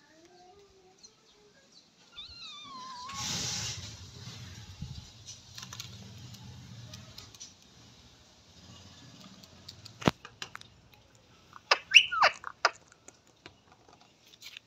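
Short, high calls from small pets: a falling call near the start, then a cluster of sharp, quickly gliding calls mixed with clicks about two-thirds through, the loudest part.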